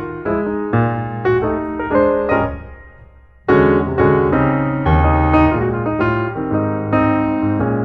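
Background piano music, notes struck in phrases; it fades almost away about three seconds in, then comes back louder with a new phrase.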